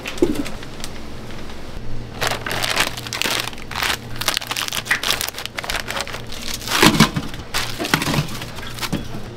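Plastic food bag crinkling and rustling in a gloved hand as breaded sticks are handled and tipped out of it into a wire frying basket, with a low steady hum underneath.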